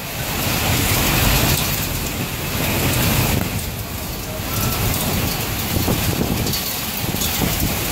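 Storm noise of heavy rain and rushing wind: a dense, rumbling wash that swells and eases every couple of seconds.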